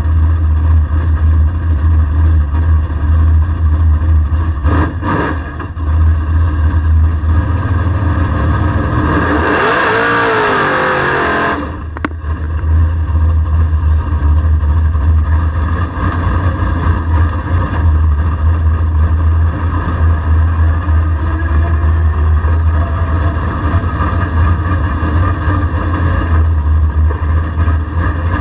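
LSX V8 of a Camaro drag car idling with a deep, steady rumble inside the cabin. About nine seconds in, the engine comes up on throttle in a burnout for a couple of seconds: a loud rushing roar of spinning rear tyres with a wavering squeal, cut off sharply. Then it drops back to idle.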